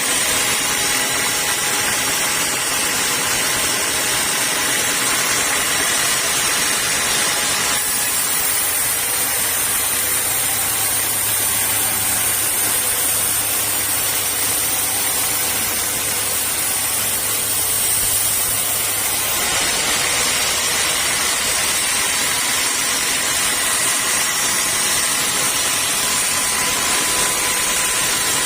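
Sawmill saw machinery running steadily with a whining tone, turning harsher and hissier for about eleven seconds in the middle.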